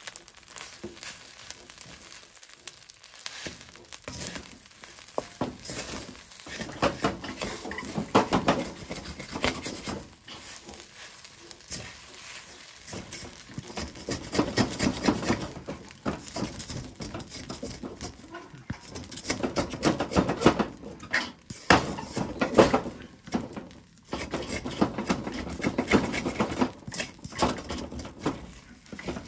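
Wooden spatula scraping and turning fried rice in a wok, in irregular bursts of scrapes and knocks.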